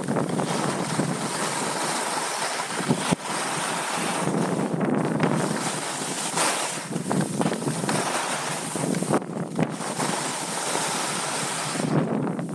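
Rushing wind noise on a moving skier's camera microphone, mixed with the hiss of skis sliding and turning on packed snow, with a brief drop about three seconds in.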